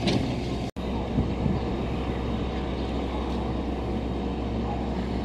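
Steady low hum of a stopped commuter electric train's onboard equipment as it stands at the platform with its doors open, broken by a momentary dropout under a second in.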